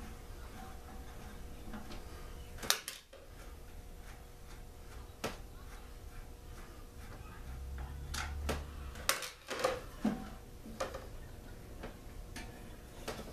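Scattered clicks and knocks of parts being handled as a small two-stroke generator is taken apart by hand. The sharpest knocks come about three seconds in and around nine seconds in, with a short low rumble just before the second group.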